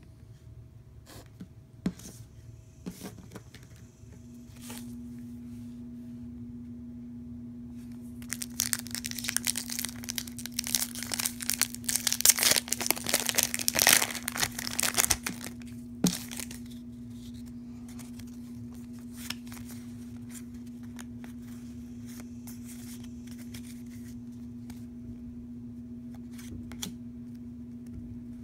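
Foil Pokémon booster pack wrapper torn open and crinkled by hand, a loud run of tearing and crinkling from about eight seconds in that lasts some seconds, with a few light clicks before and after. A steady low hum comes on about four seconds in.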